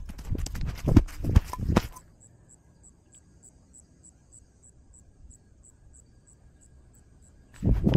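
Rustling and thumps from a camera worn by a moving cat, stopping after about two seconds. Then an insect chirps steadily, about three high chirps a second, until another burst of rustling near the end.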